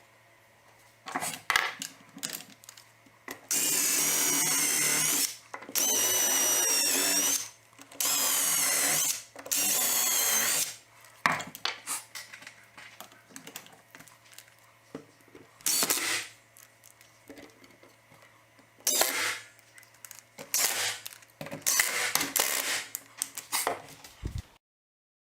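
Power drill running in four bursts of one to two seconds each, its motor pitch wavering as it works, followed by knocks, clicks and shorter bursts of tool noise.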